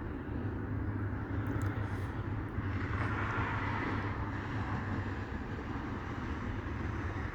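Steady low rumble of distant vehicle noise, swelling for about two seconds around three seconds in.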